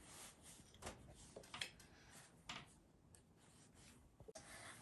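Near silence: quiet room tone with a few faint clicks, about three, from hands working a lemon being squeezed.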